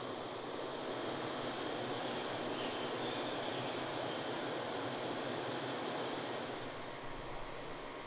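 Steady outdoor ambient noise, an even hiss-like wash with no distinct events, easing a little near the end as a few faint short ticks come in.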